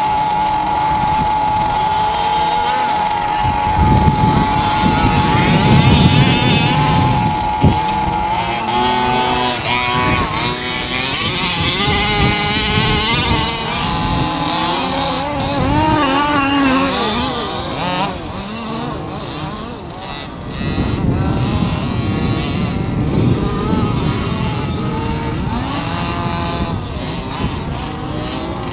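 Small two-stroke petrol engines of large-scale (1/5) RC off-road cars buzzing and revving on the track, several at once, their pitch rising and falling as they throttle up and back off. A steady engine drone is held for the first few seconds, and two stretches of low rumbling noise come in partway through and again near the end.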